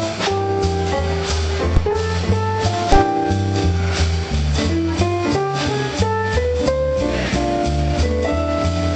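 Music with a steady beat: a bass line, drums and guitar or keyboard notes.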